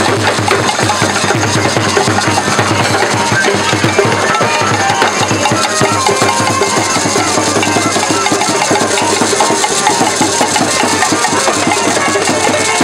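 Group street percussion playing a dense, unbroken beat: a drum struck with a stick together with a bead-netted gourd shaker (shekere) rattling.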